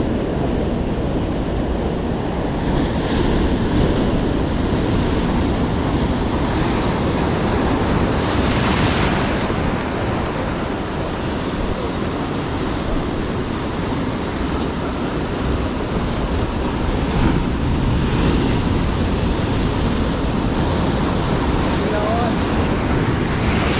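Sea surf breaking and washing on the shore as a steady heavy rush, with a bigger wave surging about eight seconds in, and wind buffeting the microphone.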